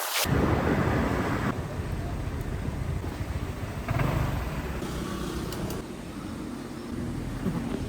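A motor vehicle engine running, with road noise.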